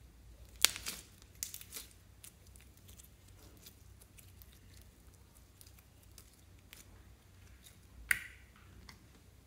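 Slime being handled: a few sharp clicks and crackles in the first two seconds, then a louder click with a short crackle about eight seconds in, as a lump of green slime is set down onto the beads and sequins in a glass dish.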